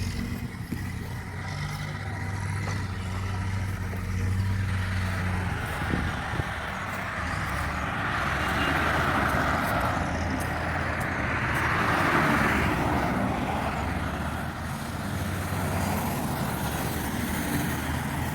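A motor vehicle's engine running steadily, with a rushing noise that swells about halfway through and again a few seconds later.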